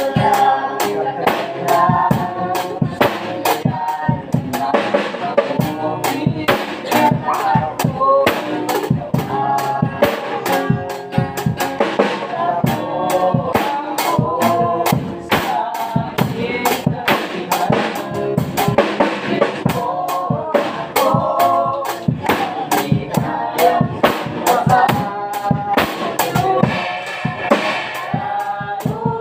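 A group singing a worship hymn, backed by a drum kit keeping a steady beat on bass drum and snare.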